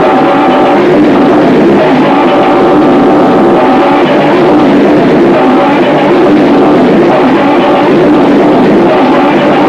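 Harsh noise music from a cassette: a loud, unbroken wall of distorted noise, with buzzing pitched tones that drop in and out every second or two.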